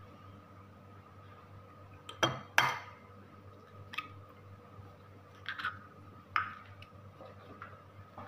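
Sharp taps and clinks on a ceramic bowl as an egg is cracked and opened into it. There are two loud knocks close together about two seconds in, then a few lighter clicks.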